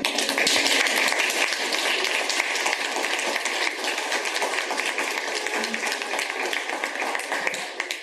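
Crowd applauding, starting suddenly, loudest in the first second or so and then slowly thinning out.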